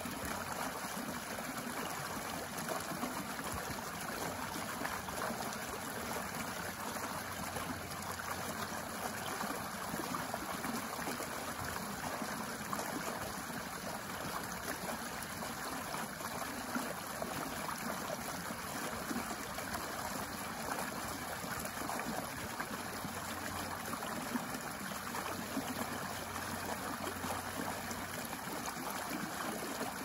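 Small shallow stream running steadily, its water splashing down a low step into a shallow pool.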